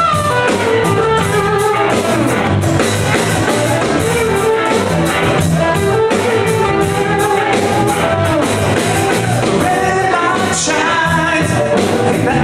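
Live southern rock band playing loudly: electric guitars, bass guitar and drum kit, with singing.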